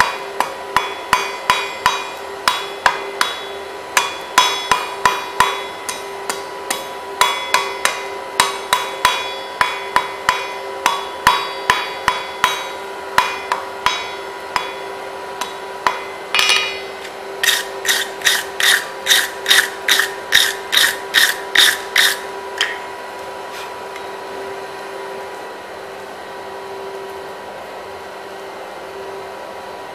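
Hand hammer striking a red-hot bar on an anvil, drawing out a tapered point: blows about two a second in short runs, the anvil ringing with each strike. Past halfway comes a run of lighter, brighter-ringing blows. Then the hammering stops, leaving only a steady hum.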